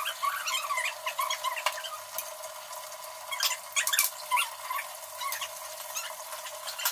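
Kitchen utensils being handled: a spoon stirring and scraping in a pan of rice, with short squeaks and a few sharp metal clinks from small measuring cups and spoons, the loudest clinks around the middle.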